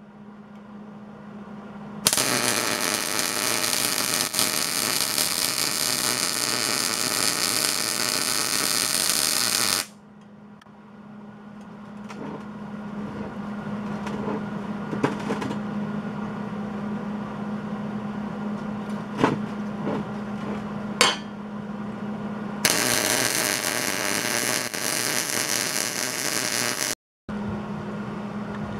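MIG welder arc crackling as weld is laid on a steel gear: one spell of about eight seconds, then a second of about four seconds near the end. A steady low hum and a few sharp clicks fill the gap between them.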